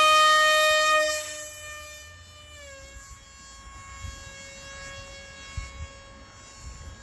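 Electric motor and propeller of a foam FPV flying wing running at high throttle: a steady high-pitched whine with many overtones. It is loud at first, drops away in level between one and two seconds in, and goes on fainter with a slight dip in pitch near three seconds.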